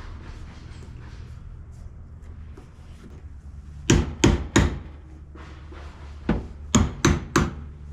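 Sharp knocks: three in quick succession about four seconds in, then four more a couple of seconds later, from the rear quarter window glass being knocked into its channel.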